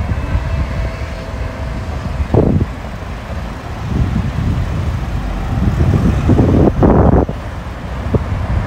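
City road traffic: cars driving through an intersection with a steady rumble, swelling louder as vehicles pass close about six to seven seconds in.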